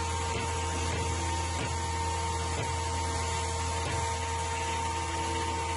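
Grizzly G0891 15-inch spiral-cutterhead planer running with a steady hum, and its feed-roller drive chain skipping with a few light knocks at uneven intervals. The skipping makes the feed rollers thump and gouge the board, which the owner puts down to the drive sprockets being too far apart.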